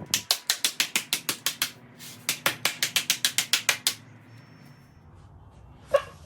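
Rapid, evenly spaced ratcheting clicks, about eight a second, in two runs of under two seconds each with a short break between them, then a single knock near the end.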